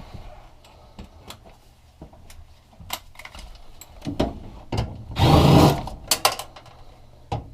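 Scattered clicks and knocks of hands working on a gas furnace's metal cabinet and parts. About five seconds in, a power drill runs in a short burst of under a second.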